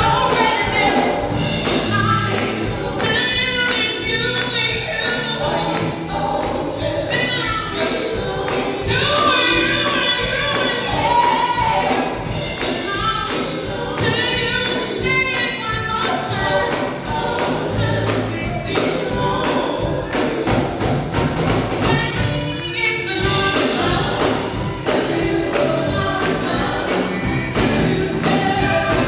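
Women's gospel vocal group singing in harmony, backed by a live church band with a steady drum beat and bass.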